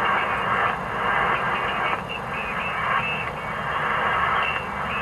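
HF transceiver's loudspeaker receiving a 40-metre single-sideband signal: the narrow, tinny sound of a distant station's weak voice mixed with static, cut off sharply in the highs.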